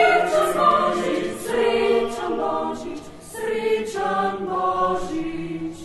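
Mixed choir singing a cappella in several parts, in long held notes; the last chord is held and stops near the end.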